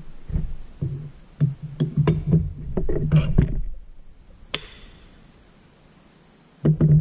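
Metal parts of a Bobcat cooling fan angle drive knocking and clinking as the gearbox shaft is set down into its housing and the housing is handled, with one sharp metallic click about four and a half seconds in.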